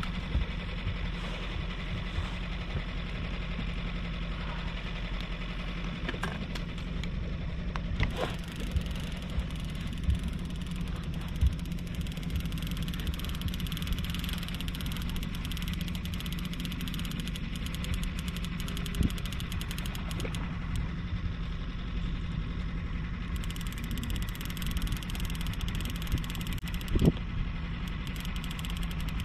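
Outboard motor running steadily at slow trolling speed, a low even drone, with a few sharp knocks now and then.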